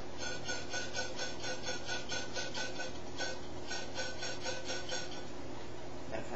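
A green lighter pressed onto the nozzle of a small can, gas hissing out in rapid sputtering pulses of about five or six a second. The pulses come in two runs with a short break near the middle.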